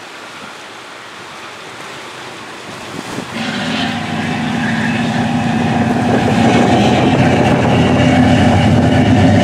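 Wind and sea noise, then from about three seconds in a boat's engine drone comes in and grows steadily louder.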